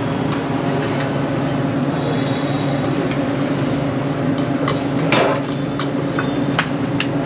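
Metal spatula clinking and scraping against a large iron tawa as paranthas cook, with a louder scrape about five seconds in. Under it runs a steady machine-like hum.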